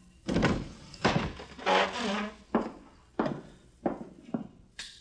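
Radio-drama sound effects: a few heavy thuds in the first couple of seconds, then footsteps at a steady walking pace, about five steps roughly 0.6 seconds apart.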